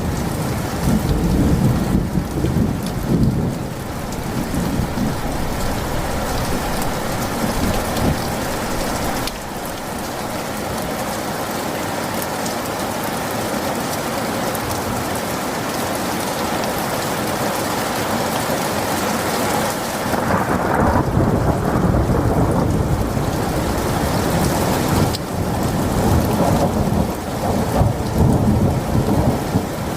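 Rain falling steadily in a thunderstorm, with thunder rumbling in the first few seconds and rolling again near the end.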